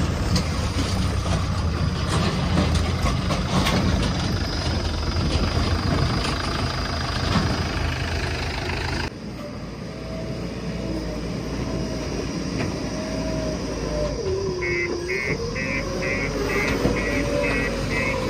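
JCB backhoe loader's diesel engine running steadily, loud and low. It cuts off abruptly about halfway through, leaving a quieter wavering whine and, near the end, a quick run of short beeps at about two and a half a second.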